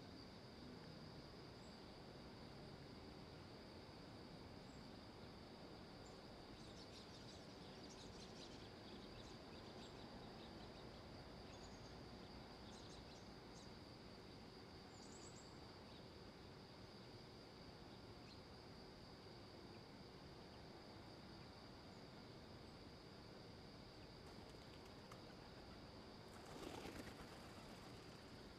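Near silence: faint outdoor ambience with a steady high insect drone and a few faint bird chirps. A brief rustling noise comes near the end.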